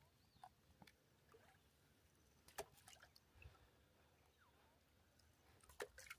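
Near silence with a few faint knocks and water sounds from paddling a small dinghy: one knock about two and a half seconds in and a small cluster near the end.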